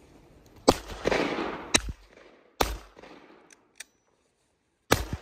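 Four sharp gunshots, each trailing off in a short echo. Three come in quick succession about a second apart, and a fourth follows near the end.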